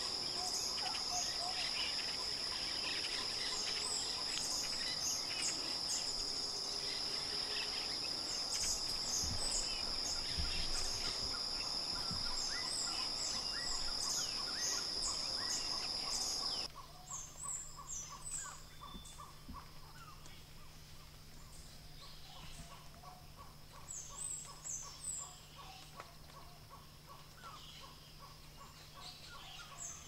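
Field recording of Central American forest birds, many calling and chirping over a steady high-pitched drone. About two-thirds of the way through it cuts to a quieter recording with scattered chirps, a quick run of repeated notes and a faint steady low hum.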